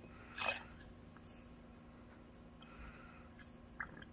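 Quiet room with a faint steady hum, a soft brief swish about half a second in, and a few faint small clicks.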